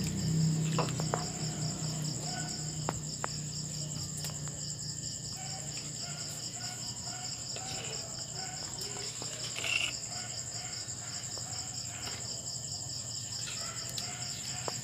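Crickets chirping steadily in an even, pulsing trill, with a few faint ticks of a metal ladle against a cooking pot.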